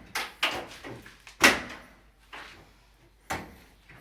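Heavy knocks and bangs against a built-in bookshelf of sheetrock and metal being torn out, about five blows, the loudest about a second and a half in.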